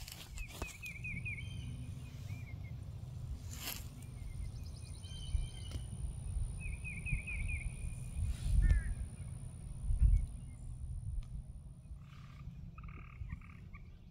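Open-field ambience: a steady low wind rumble on the microphone with two low thumps in the second half. Over it come several short runs of rapid, repeated high chirping calls from a small animal, and a thin, steady high-pitched whine that fades out near the end.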